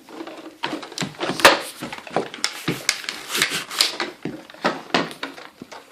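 Plastic toy parts and packaging being handled and pulled loose: a quick, irregular run of clicks, knocks and rattles.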